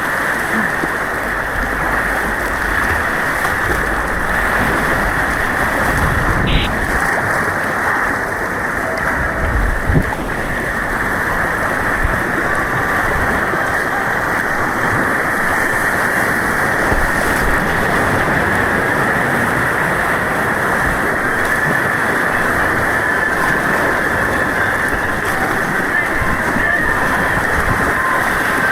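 Continuous rush of white water on an artificial white-water course, dull with little treble, with a brief knock about ten seconds in.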